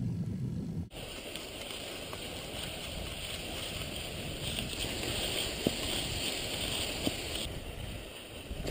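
About a second in, a low rumble gives way to cross-country skis gliding in groomed classic tracks: a steady swishing hiss of skis on snow with wind on the microphone. Two sharp taps from the poles come through in the second half.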